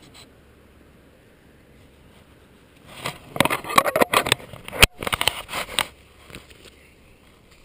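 Handling noise from a GoPro action camera being turned and fixed on its mount: a cluster of scraping, crackling rubs and sharp clicks starting about three seconds in and stopping about six seconds in, with one especially sharp click near the middle.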